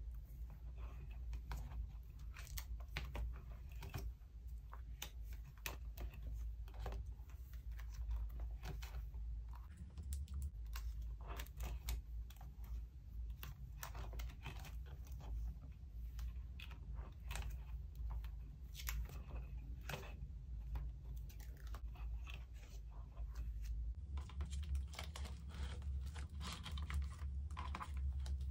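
Plastic pocket-sleeve pages of a ring binder crinkling and crackling as they are turned and handled, with many small irregular clicks and rustles. A steady low hum runs underneath.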